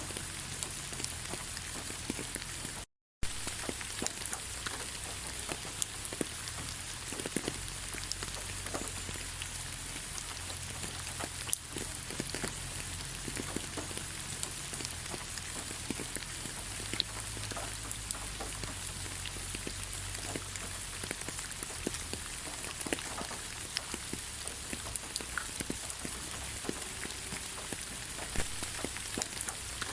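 Steady rain falling, with many separate drops ticking sharply through a continuous hiss. The sound cuts out completely for a split second about three seconds in.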